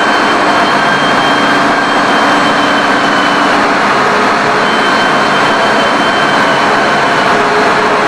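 Steady, loud machinery noise with faint high whines; one whine drops out for about a second near the middle.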